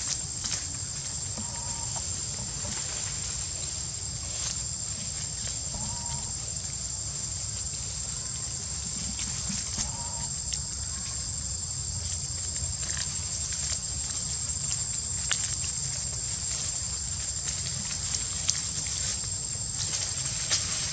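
Steady high-pitched insect drone, with a few faint short calls about two, six and ten seconds in and scattered light clicks.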